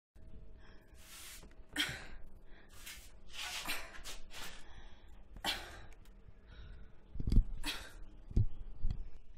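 A person's short, sharp breaths at close range, one after another, with a few low thumps near the end, the loudest about seven seconds in.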